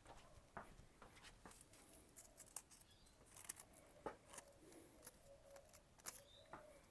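Faint scattered clicks and light scraping from a kitchen knife being handled, with a dove cooing softly in the background in the second half.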